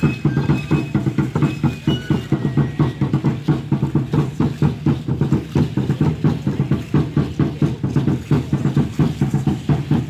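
Aztec ceremonial dance drumming: a large upright drum (huehuetl) beaten in a steady driving rhythm of about two to three beats a second, with the dancers' seed-pod ankle rattles shaking along.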